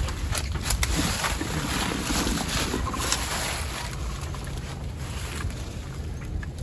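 Wind rumbling on the microphone, with scattered short rustles and knocks from hands working in dry leaves.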